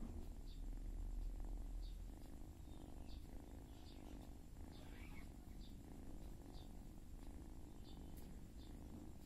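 A cat purring steadily, close up, while a grown kitten suckles at its mother. Faint soft clicks come about once a second.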